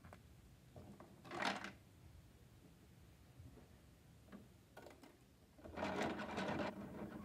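Plastic Bruder toy garbage truck being worked by hand, its parts rattling and clicking. There is a short burst about a second and a half in, a few separate clicks later, and a longer stretch of rattling from near six seconds.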